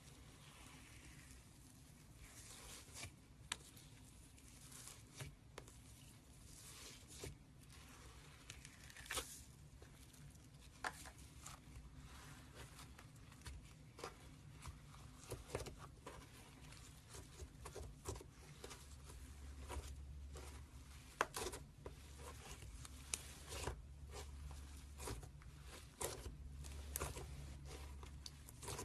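Slime being handled, giving irregular sharp pops and clicks. A low hum comes in about two-thirds of the way through.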